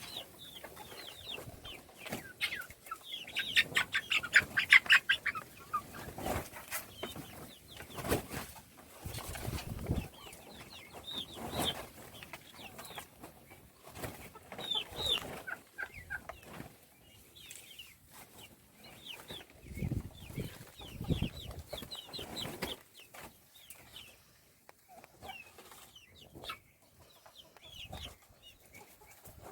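Baby chicks peeping: short high cheeps throughout, with a fast run of them about three to five seconds in, over scattered dull knocks.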